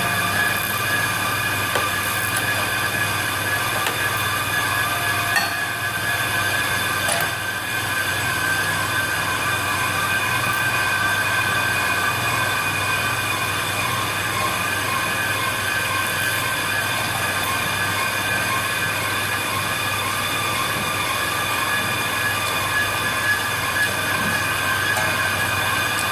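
Bench brake lathe resurfacing a brake rotor: a steady, high-pitched metallic ringing from the cutting bit on the spinning rotor, over the hum of the lathe's motor.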